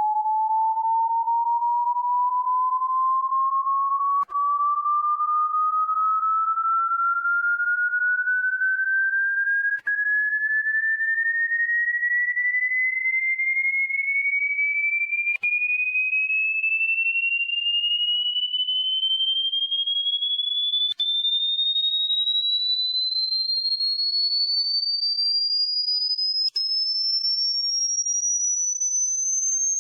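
Hearing-test sweep: a single pure electronic tone gliding steadily higher, from a medium-high pitch to a very high one. It is broken by a brief click-like gap about every five and a half seconds.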